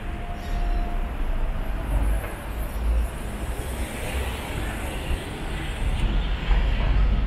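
Vehicle noise: a low, uneven rumble under a steady hiss, swelling about six seconds in.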